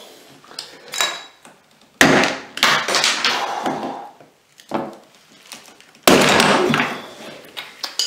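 Hand tools clattering and scraping on the faucet and tub deck while prying at a stuck faucet cartridge. Two loud sudden knocks come about two and six seconds in, each followed by a second or so of scraping, with a few lighter clicks between.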